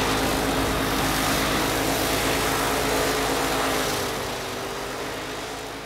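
A machine running steadily, with a constant hum over a rushing noise, dying away near the end.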